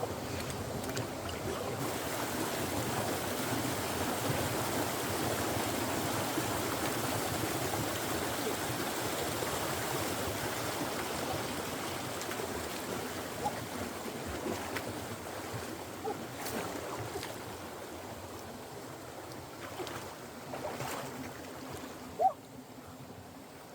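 Running stream water rushing steadily, slowly fading, with a few small clicks and one sharp knock near the end.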